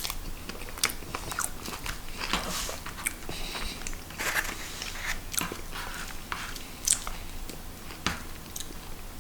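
Close-up chewing and wet mouth sounds of a person eating a soft microwave meal of meatballs and mashed potato, with irregular small clicks throughout.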